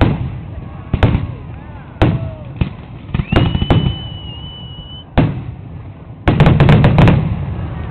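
Aerial firework shells bursting overhead: loud single bangs about a second apart, a high whistle held for about two seconds near the middle, and a fast volley of bangs near the end.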